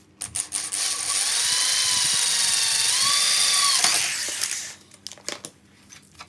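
Corded electric drill with a 4 mm bit boring through an aluminium sliding-door track. The motor whine steps up in pitch about three seconds in, then the drill stops after about four and a half seconds.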